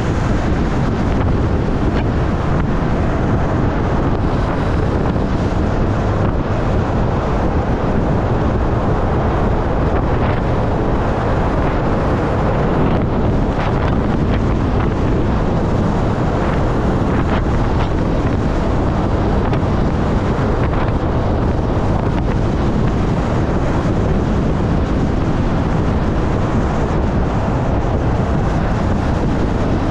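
Steady wind rush over the camera microphone on a moving Honda CB400SF motorcycle, with its inline-four engine running underneath.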